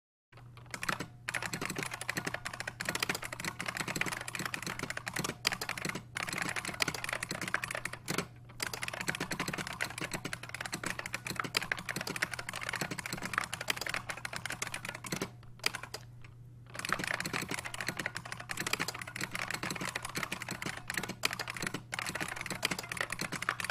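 IBM SSK (Space Saving Keyboard) buckling-spring keyboard being typed on fast and continuously: a dense stream of loud, crisp key clicks with a few brief pauses, the longest about a second just past the middle. A low steady hum runs underneath.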